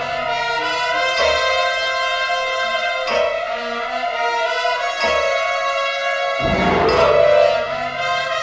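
Orchestral film score: brass and strings holding tense sustained chords, with a heavy low hit about six and a half seconds in.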